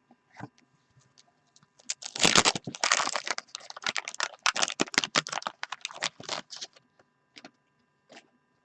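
Wax-paper wrapper of a 1989-90 Fleer basketball card pack crinkling and crackling as the pack is torn open, a dense run of crackles lasting about four seconds, followed by a few light clicks of cards being handled.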